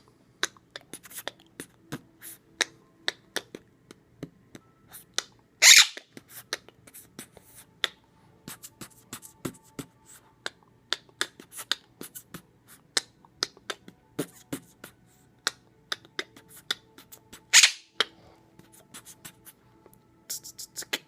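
A man beatboxing: a quick, uneven run of mouth clicks and pops, with two loud hissing bursts about six seconds in and again near the end.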